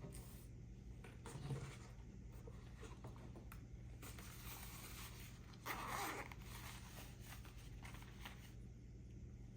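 Knife packaging being opened by hand: small clicks, rustles and scrapes, with a louder zipper-like rasp about six seconds in, over a steady low electrical hum.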